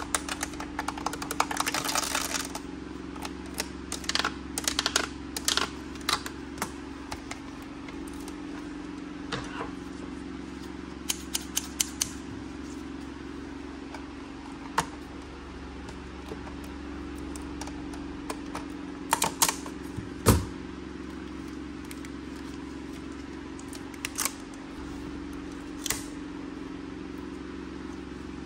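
Toy packaging being unwrapped by gloved hands. A rapid run of crackling clicks lasts about two seconds at the start as a packaging strip is pulled off. Scattered sharp clicks of scissors and hard plastic being handled follow, the loudest about two-thirds of the way through, over a steady low hum.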